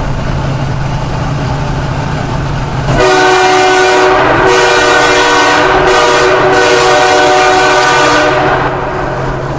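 Train horn on a semi-truck blown inside a tunnel: a loud chord of several notes starting about three seconds in and lasting about five and a half seconds, in long and short blasts (two long, one short, one long). Before it, the truck's engine hums steadily in the cab.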